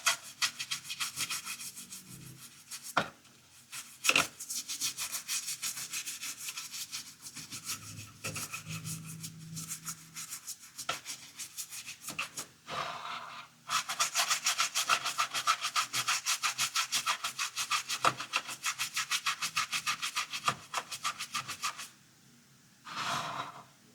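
Scrubbing on a dirty toy car: rapid back-and-forth rubbing strokes, several a second, in long runs broken by a few short pauses, with a brief last rub near the end.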